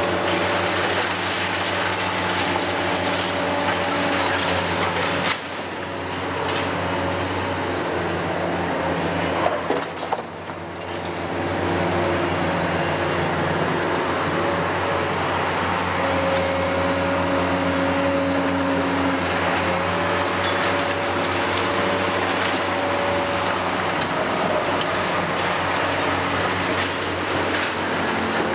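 Hitachi Zaxis 470 excavator's Isuzu six-cylinder diesel running steadily under working load, with a steady high whine from its hydraulics as it slews and works its grab. The sound dips briefly twice, about a fifth and a third of the way through, with a few sharp knocks just before the second dip.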